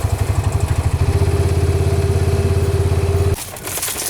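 A vehicle engine running at a low, steady, pulsing idle. It turns smoother and a little louder about a second in, then cuts off abruptly near the end.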